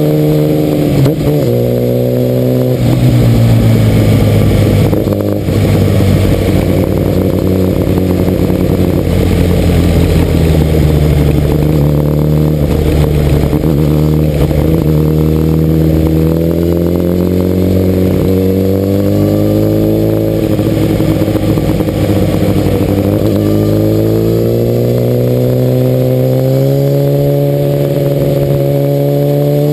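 Kawasaki ZX-10R inline-four sportbike engine running under way at moderate revs, with wind rush. The revs drop about three seconds in, wander up and down, and then climb gradually over the last several seconds.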